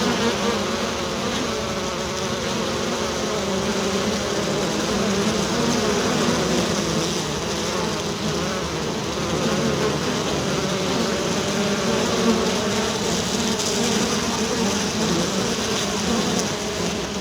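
A swarm of bees buzzing: a dense, steady drone of many overlapping wingbeat tones that waver slightly in pitch.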